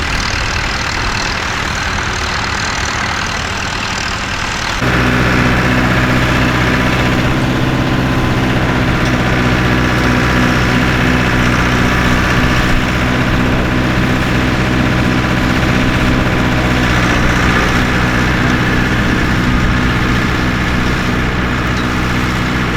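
Tractor engine running steadily. About five seconds in it turns abruptly louder, with a deeper, even engine note that holds on.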